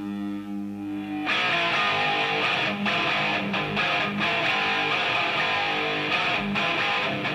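Background music: a held guitar chord, then about a second in a louder band section with strummed electric guitar comes in and carries on.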